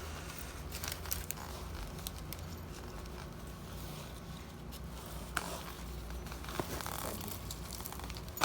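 Rustling and scattered light clicks of things being handled, over a low steady hum.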